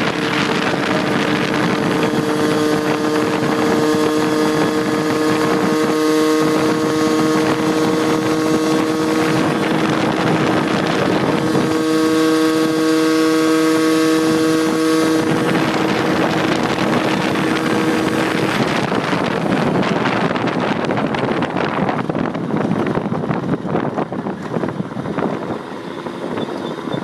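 Honda Urban Express moped's 49cc two-stroke engine with an expansion pipe, held at full throttle near 9,600 rpm: a steady high-pitched drone with wind rushing over the microphone. About 18 seconds in the steady pitch breaks up, and the sound eases off toward the end as the throttle is let off.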